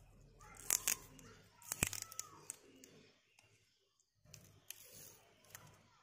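Faint handling noises at the workbench: a few sharp clicks with crinkling, in two short clusters about a second in and around two seconds in, then a few light ticks, while the soldered joints of a 3.5 mm AUX cable extension are being covered with insulation.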